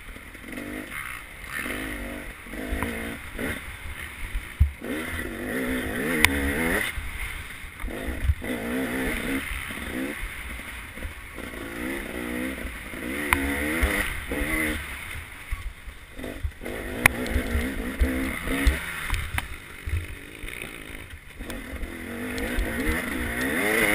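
Dirt bike engine ridden hard on a trail, its revs rising and falling over and over as the throttle is worked. A few sharp knocks come through along the way.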